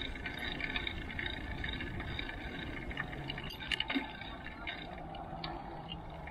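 Mountain bike rolling over pavement: a steady rush of tyre and riding noise, with a few sharp clicks about four seconds in.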